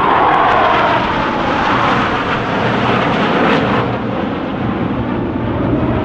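Formation of J-10 fighter jets flying past, a loud steady jet roar whose tone drops in pitch in the first second.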